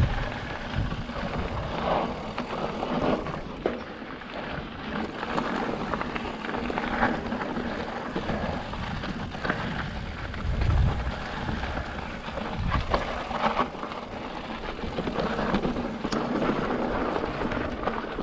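Fezzari La Sal Peak mountain bike rolling down rocky dirt singletrack: tyres crunching over gravel and stones, with frequent rattles and knocks from the bike over the bumps. Wind buffets the microphone now and then, most around ten and thirteen seconds in.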